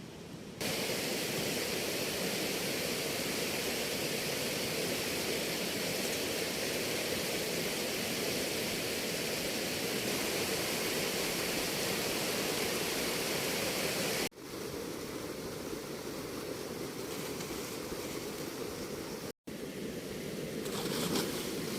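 Steady rush of river water, an even hiss. It cuts abruptly about 14 seconds in to a quieter stretch of running water, with another brief break a few seconds before the end.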